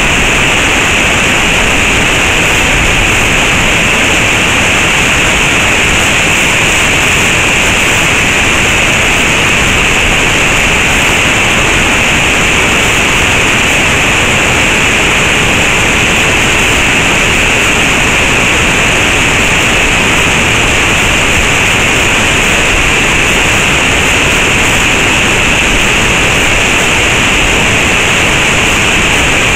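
Waterfall pouring down a rock face and crashing into its pool, a loud, steady rush of water.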